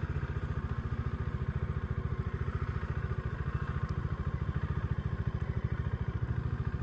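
Modenas Dominar D400's single-cylinder engine running at low revs, an even, rapid beat of firing pulses with no change in speed, as the bike creeps along a narrow path.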